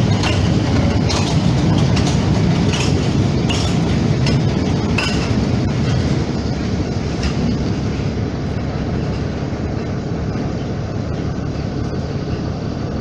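Inside a moving city bus: a steady low engine and road rumble with the bus body rattling and clinking. The rattles fade out after about seven seconds and the rumble gets a little quieter.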